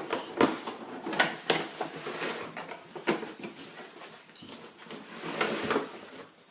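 Plastic airsoft helmet with built-in goggles being handled: irregular clicks, knocks and rubbing of hard plastic parts.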